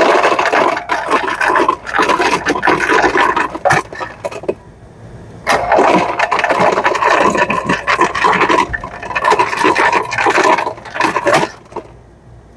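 Ice cubes clattering out of a Lancer FS-30 soda machine's ice chute in two dispense runs, about four and then six seconds long, with a short pause between. The flow stops each time, a sign that the chute door is closing properly again.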